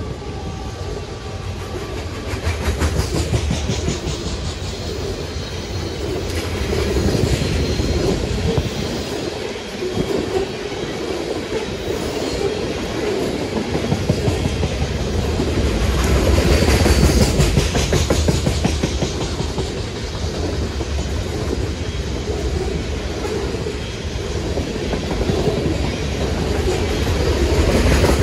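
Loaded CSX coal train's open-top hopper cars rolling past fast: a continuous heavy rumble and rattle of steel wheels clattering over the rail joints, swelling louder several times as cars go by.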